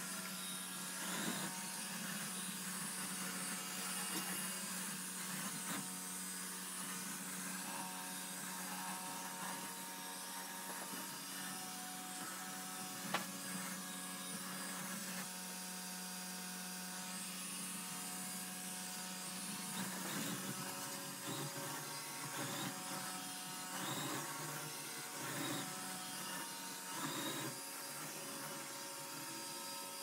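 Yeedi Vac 2 Pro robot vacuum running on a hardwood floor, a steady motor and brush hum with a few constant whining tones. A single sharp click sounds about thirteen seconds in.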